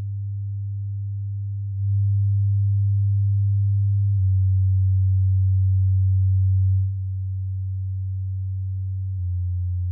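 Low bass test tone near 100 Hz played through computer speakers, a steady pure tone that changes in steps every two to three seconds, with faint overtones above it. It gets louder about two seconds in and drops back near the seven-second mark.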